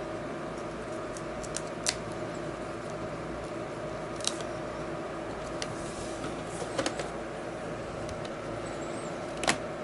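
Scattered small, sharp clicks and taps of fingers handling a laptop LCD panel and seating its display cable connector, over a steady background hum.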